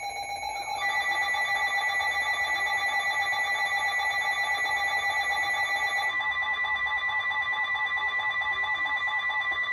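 Emergency Alert System attention signal: layered steady electronic alert tones with a rapid pulse. A further higher tone joins about a second in, and the pattern changes about six seconds in, marking the start of a new severe thunderstorm warning.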